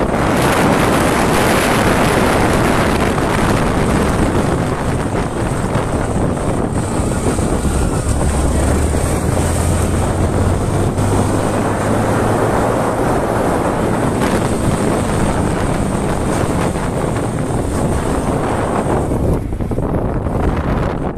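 Motorcycle under way: loud wind rushing over the microphone mixed with the engine's running note, whose low hum comes through more strongly in the middle. The wind noise eases near the end.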